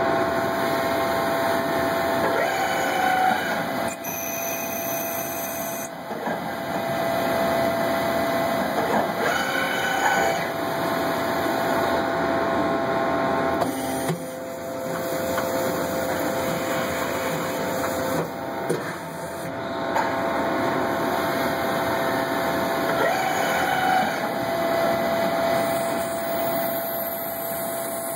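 Small CNC lathe running a machining program: a steady motor whine with stepper tones that change pitch every few seconds as the machine switches between moves.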